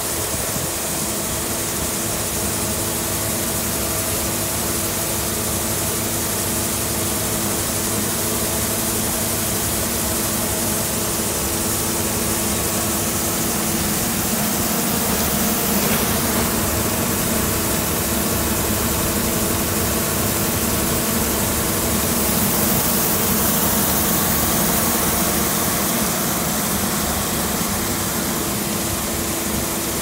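New Holland combine harvester running while parked, its engine and threshing machinery humming steadily as the unloading auger discharges wheat grain onto a tarpaulin with a steady hiss.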